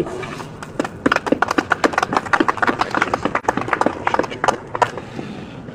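A small group of people applauding with scattered hand claps, which die away about five seconds in.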